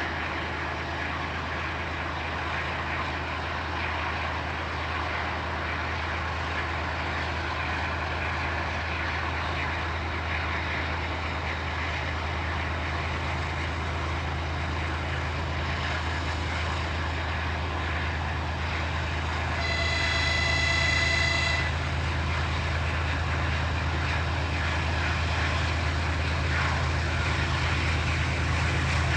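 TE33AC diesel locomotive with its twelve-cylinder diesel engine running, approaching and growing slowly louder. About two-thirds of the way through, the locomotive's horn sounds one chord-like blast of about two seconds.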